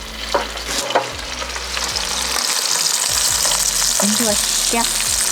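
Breakfast food frying and sizzling in a pan, the sizzle growing louder about two seconds in, with a couple of sharp clicks near the start.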